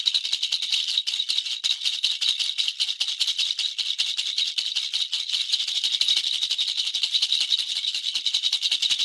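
Baby's toy rattle shaken without a break: a fast, dense, high-pitched rattling at an even level.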